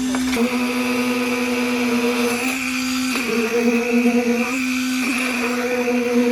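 An engine running steadily with a constant hum, its pitch wavering briefly twice.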